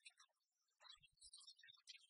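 Near silence, with faint scattered ticks and crackle.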